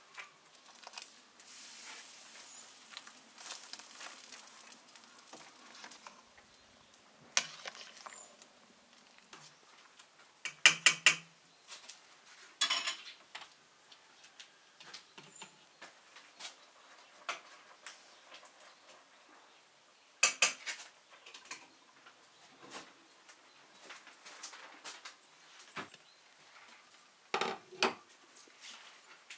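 Stainless steel pots, lids and a metal spoon clinking in a few short bursts, the loudest a quick run of clinks about a third of the way in, with soft handling noise between.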